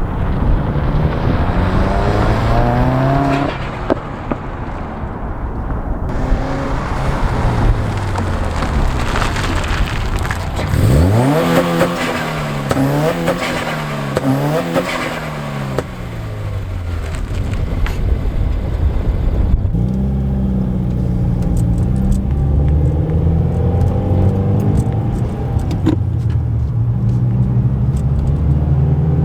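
Subaru WRX's turbocharged flat-four engine under way, its pitch climbing as it accelerates and dropping back at each gear change, several times over. About eleven seconds in it revs up sharply and swings quickly up and down for a few seconds.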